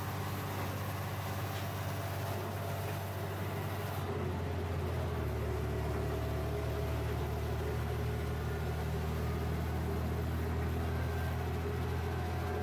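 Inside a JR Shikoku 1000 series diesel railcar under way: a steady low engine drone with running noise from the rails. About four seconds in the engine drone grows louder and fuller.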